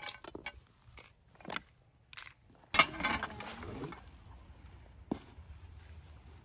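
A bundle of plastic-wrapped climbing-dome poles being handled and laid out: crinkling plastic wrap with scattered clicks and knocks of the poles. The loudest moment comes about three seconds in, a sharp knock followed by about a second of rustling.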